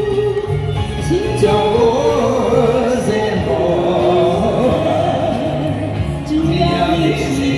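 A singer performing a song over a backing track, with a bass line repeating underneath.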